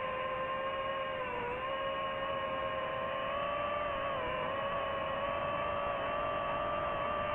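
DJI FPV drone's motors and propellers whining steadily, picked up by the drone's own microphone. The pitch dips briefly twice and creeps slowly upward as the throttle changes.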